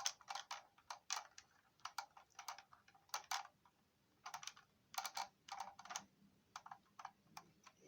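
Irregular runs of sharp plastic clicks and clacks, a few at a time, from a hard plastic vintage Kenner X-wing fighter toy being handled.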